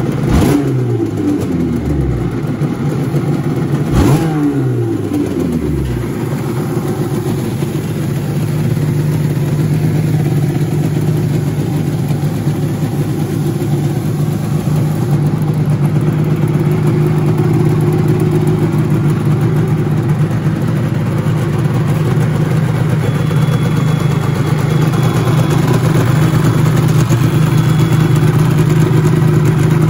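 1986 Suzuki RG500 Gamma's 500 cc square-four two-stroke engine blipped twice, about four seconds apart, the revs falling away over a couple of seconds each time, then idling steadily, growing a little louder toward the end.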